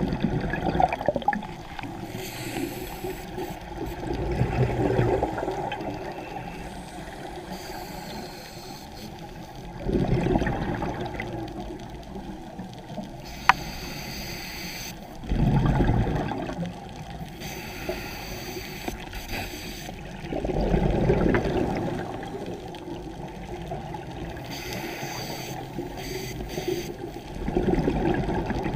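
Scuba regulator exhalation bubbles heard underwater: a bubbling surge every five seconds or so, each lasting a second or two, with steady quieter hiss between. A single sharp click about halfway through.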